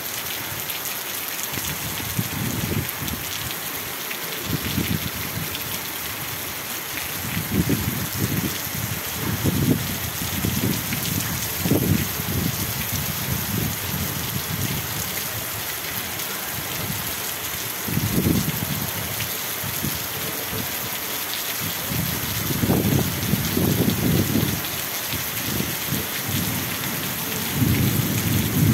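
Heavy rain pouring down in a steady hiss, with low rumbles that swell and fade every few seconds.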